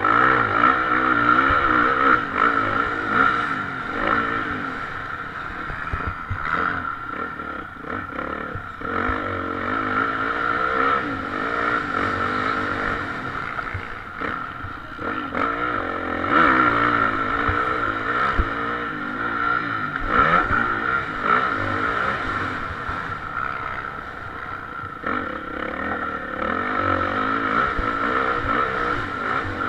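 Motocross bike engine heard from a camera mounted on the bike, revving up and down with the throttle as it is ridden round the dirt track, with wind noise on the microphone and short knocks and rattles from the bumps.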